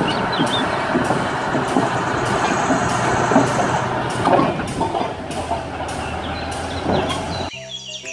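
Komatsu D475A crawler bulldozer's diesel engine running, with a regular clatter of steel tracks about twice a second. It cuts off suddenly about seven and a half seconds in.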